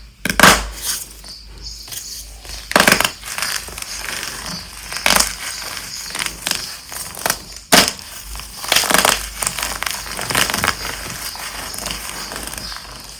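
Dyed gym chalk blocks being crushed: a loud, sharp crunch every second or two, with crumbly crackling between.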